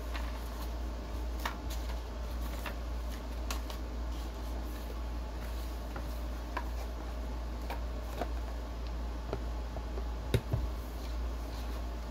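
Scattered small clicks and taps of a Surface Duo 2 folding phone and its cover being handled on a desk, with one louder knock about ten seconds in, over a steady low hum.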